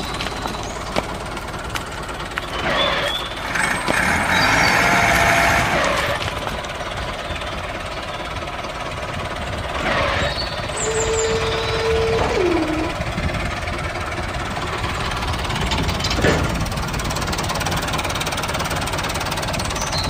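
A small engine-driven machine running steadily with a rattling, knocking sound, growing louder for a couple of seconds a few seconds in. A few short held tones drop in pitch over it.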